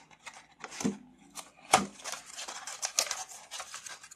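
A small cardboard box being opened by hand: the flaps scraping and rustling, with a run of short clicks and one sharp snap a little under two seconds in.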